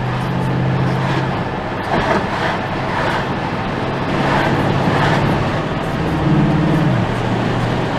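Bentley Continental GT V8 S's 4.0-litre twin-turbo V8 through its sports exhaust, running at a steady low engine note while driving, over road noise. About six seconds in the revs rise briefly, then drop back.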